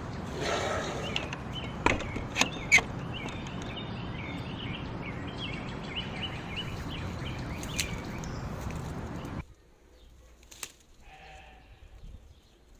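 Steady rush of flowing water with small birds chirping over it. A sheep bleats about half a second in, and a few sharp clicks follow around two to three seconds. The rushing cuts off suddenly near the end, leaving faint bleating.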